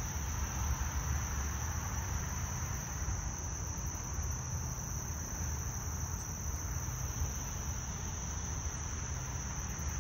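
Steady high-pitched insect chorus, like crickets, droning without a break over a low steady rumble.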